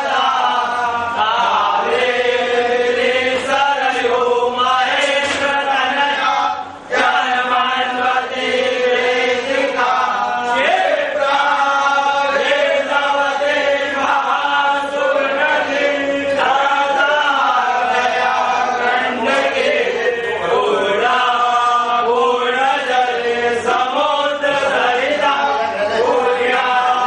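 Voices chanting a Hindu devotional mantra in a continuous, steady recitation, with a brief pause about seven seconds in.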